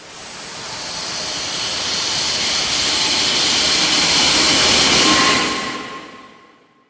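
A long whoosh sound effect: a rush of hissing noise that swells steadily for about five seconds, then fades away over the last second and a half, like a jet passing.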